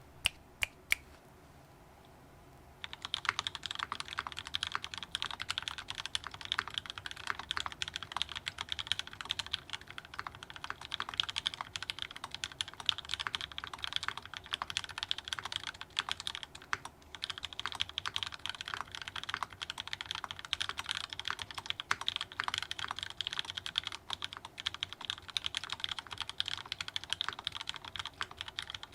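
Continuous fast typing on a custom mechanical keyboard: lubed linear switches, Gateron Milky Yellow tops on KS-3 bottoms, in a polycarbonate-cased Unikorn with an FR4 plate and GMK keycaps. A few single key presses in the first second, then a steady stream of clicky clacks from about three seconds in, with a short pause around the middle.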